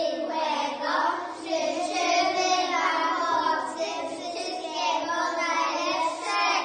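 A group of young girls singing a song together, their voices carrying on without a break.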